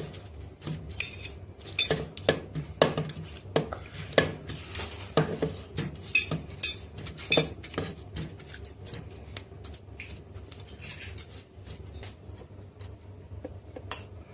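Ice cubes being added to a blender jug: a string of sharp, irregular clinks and clatters, busiest in the first half and thinning out later.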